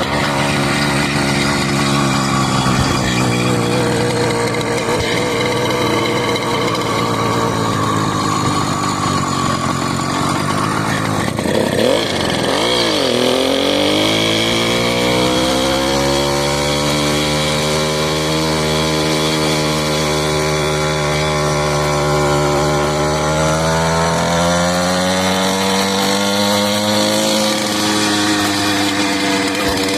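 Small motorbike engine running hard and continuously. Its pitch dips sharply about twelve seconds in, climbs back over the next few seconds, then slowly rises and falls as the revs change.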